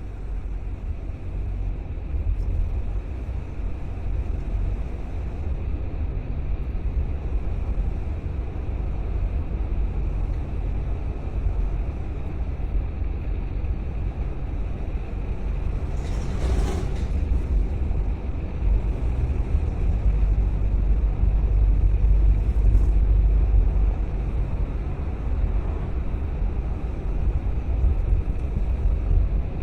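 Car driving on city streets: steady low rumble of engine and road noise with some wind noise, and a brief hiss about halfway through.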